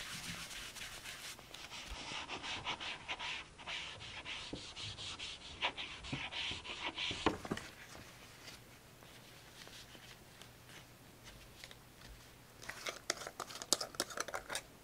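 Close-up rubbing and scratching on paper for about seven seconds, as journal materials are worked by hand. A quiet pause follows, then a quick run of light clicks and rustles near the end.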